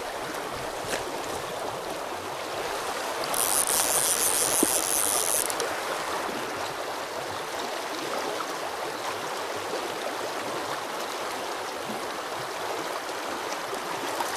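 Shallow river current flowing and rippling steadily. About three seconds in, a brief high-pitched buzz lasts roughly two seconds.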